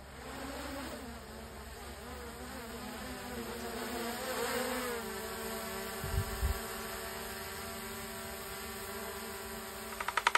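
DJI Mini 4 Pro drone's propellers buzzing overhead, a whining hum whose pitch wavers for the first few seconds and then settles to a steady tone as it hovers close. Two low thumps come about six seconds in, and a burst of rapid ticks at the very end.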